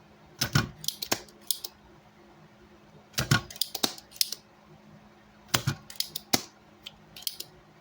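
Hand tools scraping and clicking against an amplifier circuit board, in four short clusters of sharp clicks, as the board is cleaned after the old transistors are removed.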